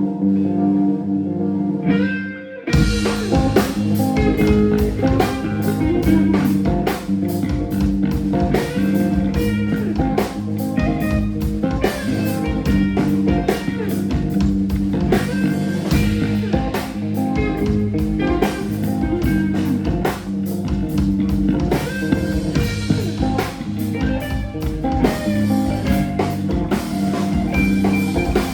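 Music: a quiet held guitar passage for about two seconds, then a full band comes in with drums and electric guitar at a steady beat.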